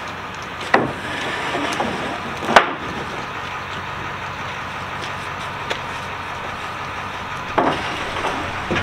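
Long wooden boards knocking as they are slid and set down inside an enclosed cargo trailer: a few sharp wooden knocks, the loudest about two and a half seconds in, over a steady background hum.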